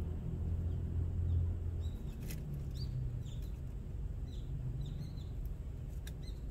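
Small birds chirping: several short, high, falling chirps from about two seconds in, over a low steady hum, with a few faint clicks.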